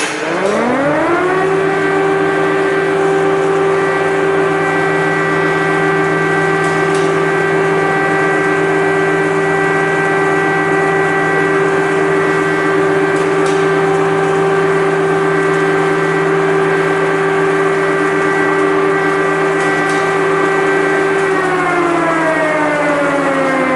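Air-raid siren winding up to a steady wail in the first second or two, holding one pitch with a steady lower hum beneath, then starting to wind down a couple of seconds before the end. It is an air-raid alert, the signal of danger of missile strikes and a call to take shelter.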